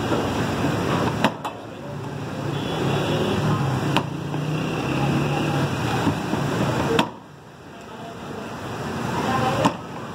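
Busy roadside ambience: traffic and people's voices. Four sharp knocks come at intervals of about three seconds.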